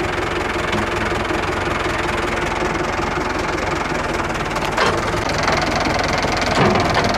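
Renault 652 tractor's diesel engine running steadily, with two short knocks about five seconds in and near the end.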